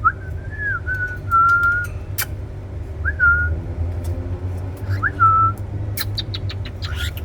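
Cockatiel whistling: a clear phrase that slides up and then holds its note, then two shorter whistles of the same shape, with a quick run of clicks near the end. A steady low hum runs underneath.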